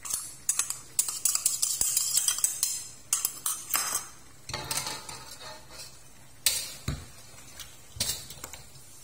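Metal spoon clinking and scraping against a stainless steel wok while seasonings are stirred into pork pieces. A dense run of quick clinks and scrapes in the first four seconds, then a few separate clatters.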